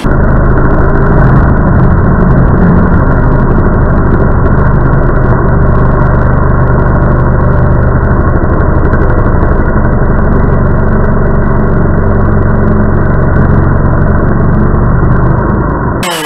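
Stihl MS 660 two-stroke chainsaw running hard at a steady pitch while its chain cuts into a protective chainsaw boot. The sound is deep and dull, with none of its usual high buzz, and it stops near the end.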